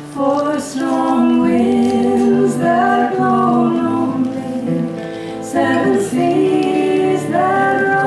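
Two women singing a folk song together in harmony, accompanied by two strummed acoustic guitars. The sung phrase pauses briefly a little past halfway, then resumes.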